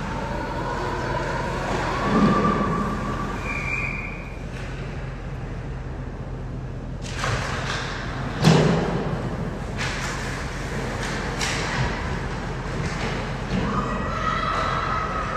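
Ice hockey play in a rink: a thud about two seconds in and a louder one about eight and a half seconds in, with lighter clacks of sticks and puck, over steady arena noise and faint voices.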